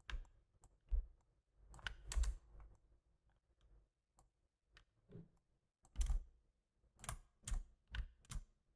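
Computer keyboard keys being tapped irregularly, a few at a time, with a quicker run of taps from about six to eight and a half seconds in.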